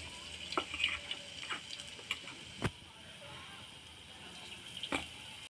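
Dal vadas frying in hot oil in a kadai: a steady sizzle with scattered crackles and a few sharper pops, cutting off abruptly near the end.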